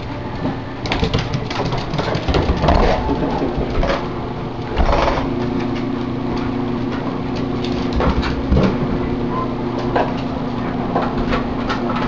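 A small dog scrabbling after a balloon on hard floors: irregular clicks and knocks from its claws and from the balloon bumping about. Underneath is a steady low hum that grows stronger about five seconds in.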